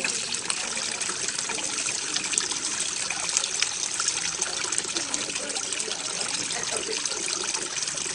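Water fountain spraying and splashing steadily, with many small splashes.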